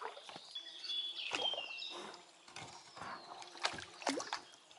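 An inflatable boat being rowed on a small river: oars dipping and splashing, with irregular knocks and a short high squeak about a second in.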